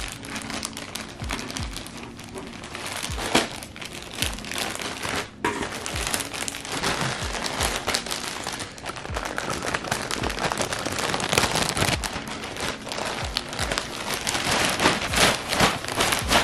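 Clear plastic poly bags crinkling and crackling as bagged clothing is handled and pulled out, with many irregular sharp crackles throughout.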